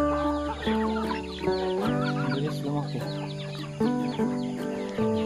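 A flock of hens clucking while they feed, under background music of held notes and a bass line that change every second or so.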